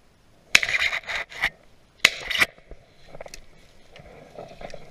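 Dry leaves and brush scraping and crunching in several short, loud bursts as someone pushes through woodland, then only faint rustling from about two and a half seconds in.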